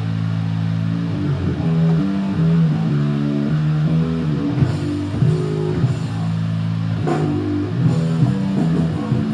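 Background rock music led by bass and guitar, with held notes changing every half second or so.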